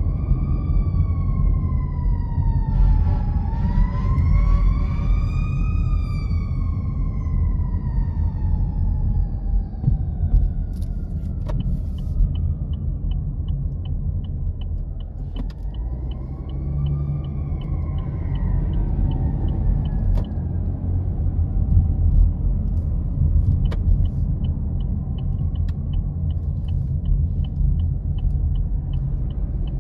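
An emergency-vehicle siren wailing, rising and falling a few times in the first ten seconds and again near the middle, over the steady low rumble of a car on the road. A light, fast, even ticking, about two or three a second, runs through much of the second half.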